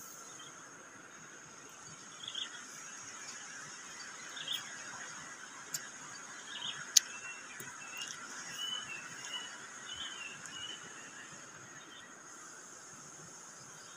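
Steady high insect drone with short bird chirps scattered through the middle, and one sharp click about halfway through.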